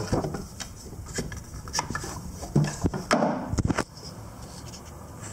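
Scattered light knocks and rubbing on wood, mixed with the rumble of a handheld camera being handled. The loudest cluster of knocks and rumble comes a little past the middle.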